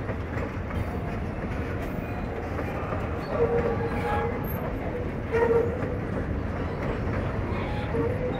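Freight train hopper wagons rolling past: a steady rumble of steel wheels on the rails. Two short squeals come through about three and a half and five and a half seconds in.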